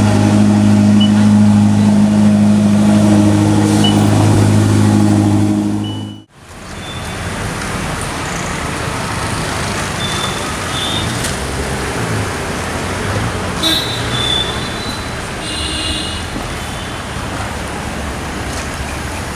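A vehicle engine running with a steady low drone, then after an abrupt cut, street traffic noise with several short horn toots.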